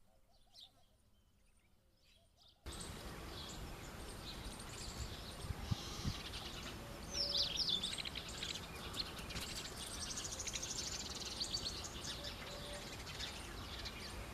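House sparrows chirping in short, scattered high chirps, busiest about seven seconds in. Over a steady background hiss that starts abruptly a couple of seconds in after near silence.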